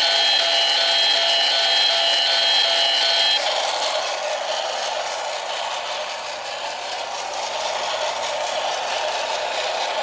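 Battery toy train: a steady high electronic tone sounds and cuts off about three seconds in, leaving the toy's small motor and gears whirring.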